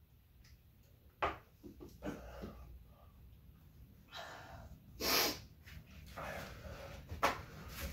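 People breathing hard through a burning mouth after eating a scorpion pepper: several sharp breaths and exhales, the longest and loudest about five seconds in.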